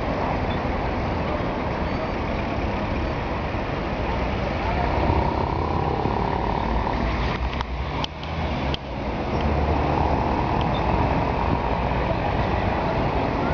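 Steady road traffic and vehicle engine noise, a dense rumble with hiss. About eight seconds in it dips briefly, with a few sharp clicks.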